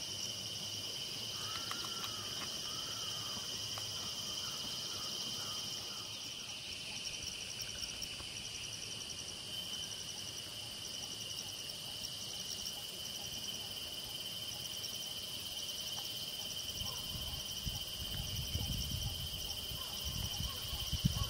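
Steady outdoor insect chorus: a continuous high buzz with a fast pulsing trill over it. A few short chirping calls come about two seconds in, and a low rumble comes near the end.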